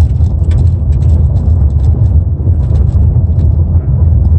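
Road noise inside a moving car on a gravel road: a steady low tyre rumble with many small clicks of loose stones.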